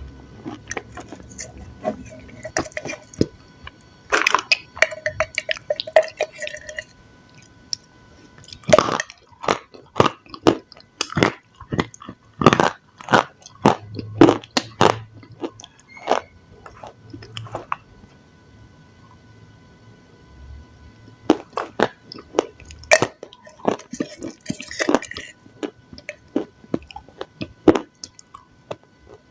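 Close-miked chewing of crunchy food: irregular sharp crunches and crackles from bites and chewing, coming in clusters with short quieter gaps between.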